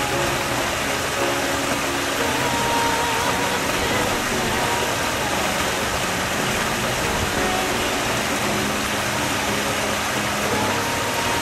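Water spilling steadily from a raised spa over its stacked-stone wall into a swimming pool, an even rushing splash.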